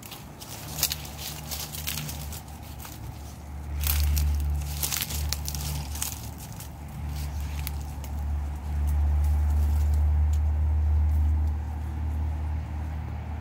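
Footsteps crunching through dry grass and fallen leaves, with scattered crackles and rustles, mostly in the first half. Underneath is a low rumble that swells louder about four seconds in and again for a few seconds past the middle.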